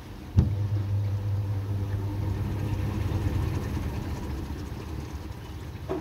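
Samsung WA80H4000 top-loading washing machine spinning its drum in the spin-dry stage. There is a sharp click about half a second in, then a steady low hum that slowly fades.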